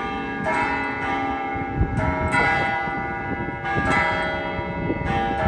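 Church bells ringing, several bells struck one after another, a new stroke every second or so, each tone left ringing over the next.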